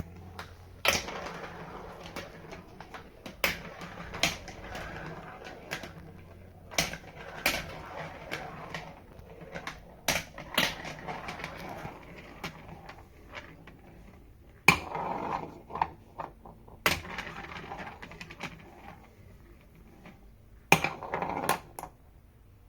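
Small GraviTrax marbles rolling along plastic marble-run track, a steady rolling rattle broken by sharp clacks at irregular intervals as they drop and knock against the track pieces.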